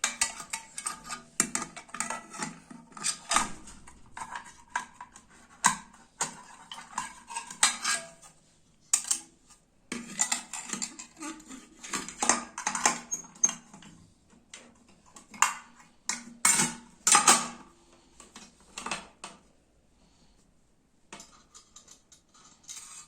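Metal parts of a clothes iron clinking and knocking as it is put back together by hand, in quick irregular clicks that thin out to a few near the end.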